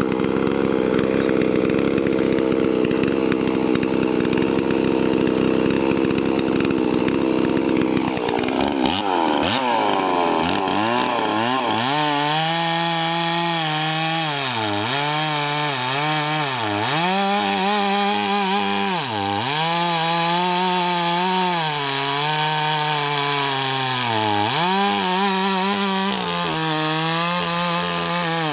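A Farmertech/Huztl MS 440 clone-kit chainsaw, a large two-stroke, running at full throttle. About eight seconds in its pitch drops as the chain bites into a big log. From then on the engine note sags and recovers every second or two as the saw works through the cut under load.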